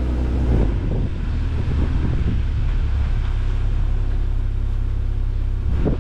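BMW 335i's turbocharged inline-six engine running at idle, a steady low rumble, as the car creeps slowly forward onto a wooden ramp.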